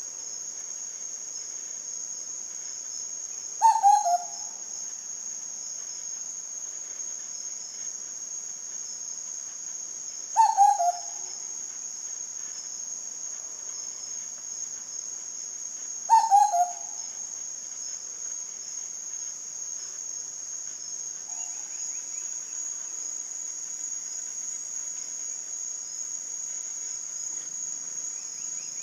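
A Sulawesi cuckoo calls three times, about six seconds apart, each call a short phrase of quick falling notes. Under it runs a steady high-pitched insect drone.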